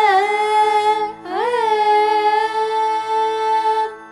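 Female voices singing a Sanskrit devotional hymn in Carnatic style over a steady drone, drawing out the last syllable of a verse with a wavering held note. About a second in a second long, steady note begins and holds until shortly before the end, leaving the drone alone.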